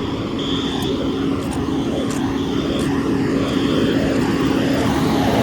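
Fire apparatus engine running loudly with a steady drone, growing a little louder toward the end. A high electronic beep sounds on and off in short pulses through the first few seconds, then stops.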